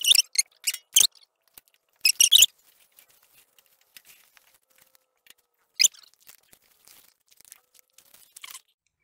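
A few short dry crunches and rustles of grass and weeds, loudest near the start and about two seconds in, as a walking tractor with rotary tiller is dragged over rough ground by hand and trampled around. There is no engine running.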